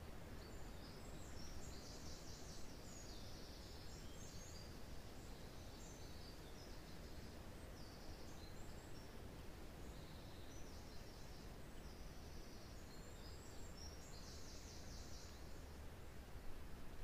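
Wind rushing through pine trees as a steady low rumble, with small forest birds giving high, rapid trilling calls on and off.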